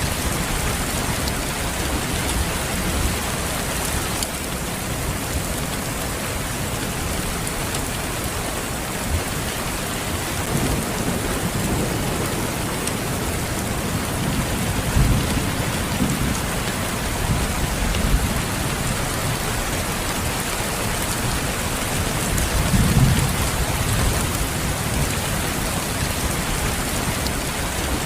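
Steady rain falling, with low rumbles of thunder swelling up a few times, the strongest near the end.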